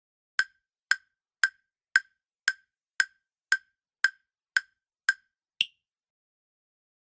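Quiz countdown timer sound effect: ten sharp, even ticks, about two a second, then a final higher-pitched tick that marks the end of the answering time.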